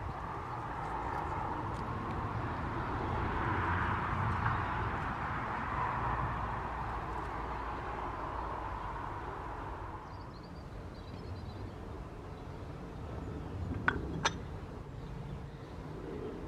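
Outdoor ambience with a distant vehicle passing: a broad engine-and-road noise swells and fades away over the first ten seconds over a low rumble. A bird chirps faintly after that, and two sharp knocks come close together a little before the end.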